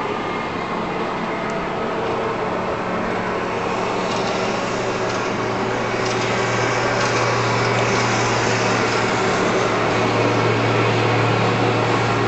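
A steady mechanical hum with a low drone under an even hiss, slowly growing a little louder.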